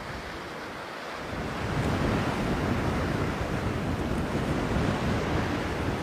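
Rushing noise of wind and sea surf, swelling about a second and a half in and then holding steady.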